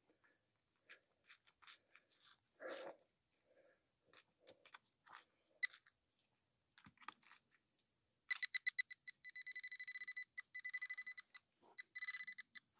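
Faint scrapes and squelches of digging in wet soil, then, about eight seconds in, a handheld Quest Xpointer Max pinpointer sounds a high-pitched pulsing beep that quickens into a near-continuous buzz as it closes on a metal target in the hole.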